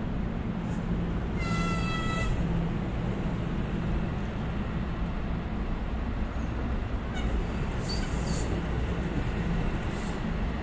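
NJ Transit commuter train running by at close range: a steady rumble with a low hum underneath. A brief high-pitched tone sounds about one and a half seconds in.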